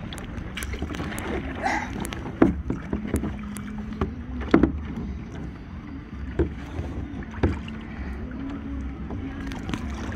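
Kayak paddling: a double-bladed paddle stroking through the water beside a plastic sit-on-top kayak, with a few sharp knocks a second or two apart over a steady low rumble.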